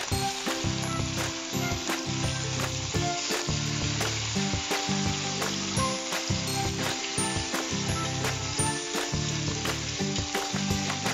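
Marinated chicken pieces sizzling steadily as they pan-fry in hot oil in a stainless steel pan, with more pieces being laid into the pan.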